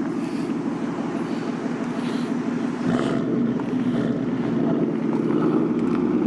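2018 Ford Mustang GT's 5.0 L Coyote V8 running through a freshly fitted AWE Touring cat-back exhaust, a steady idle rumble. About three seconds in it deepens and gets slightly louder.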